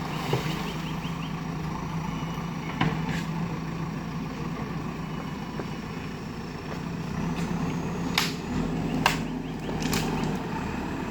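JCB backhoe loader's diesel engine running steadily, with a few sharp knocks, several of them close together near the end.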